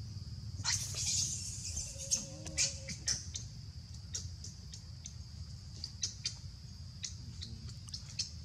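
A macaque's shrill squeal about a second in, followed by a string of short high squeaks and clicks, over the steady buzz of insects.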